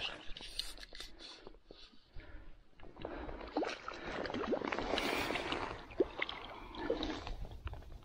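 Irregular splashing and sloshing of stream water as a small hooked brown trout is brought in, with the splashing heaviest in the middle.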